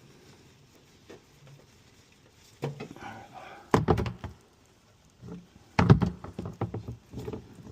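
Knocks and clunks of hand tools and parts being handled, in two bursts: one about three to four seconds in, a louder run of several sharp knocks near six to seven seconds.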